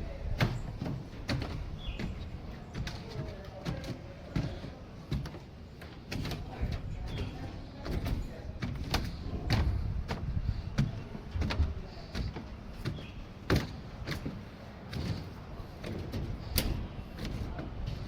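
Irregular knocks and clatters, some sharp, over a steady low rumble.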